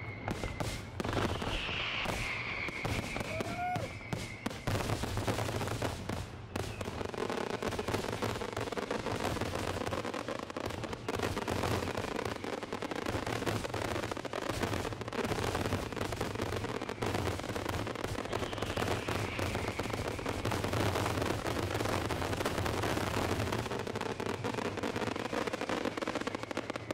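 Fireworks display: a dense, continuous barrage of bursting aerial shells, rapid bangs and crackling one after another. A whistle falling in pitch comes through about two seconds in and again about twenty seconds in.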